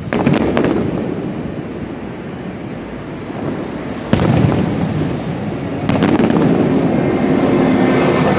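Aerial fireworks shells bursting far off, as three separate booms at the start, about four seconds in and about six seconds in. Each boom trails off in a low rumble, and there is some crackling just after the first.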